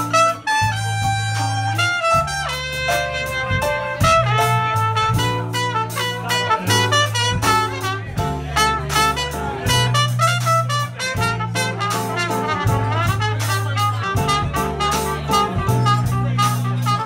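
Live funk band playing: a trumpet, joined by a saxophone, plays a quick, busy melodic line over electric bass guitar and a drum kit keeping a steady beat.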